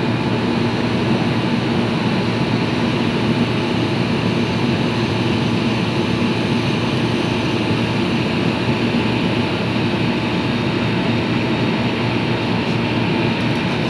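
Window air conditioner running with its compressor and fan on, a steady unbroken hum, while it is being topped up with R22 refrigerant.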